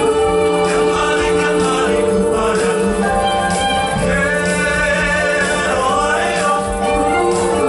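Mixed choir of women and men singing into handheld microphones, holding long sustained notes.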